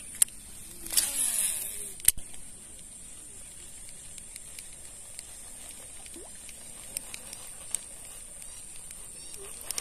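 Baitcasting reel being handled and wound during a lure retrieve. There are a few sharp clicks, a short whirring rush about a second in and another sharp click at around two seconds. Then faint occasional ticks over a steady high hiss.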